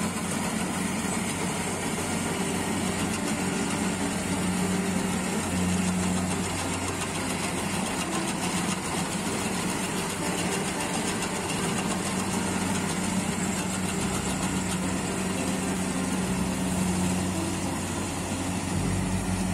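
Kubota Harvesking tracked combine harvester working through rice paddy: its diesel engine runs steadily along with the din of the cutting and threshing gear.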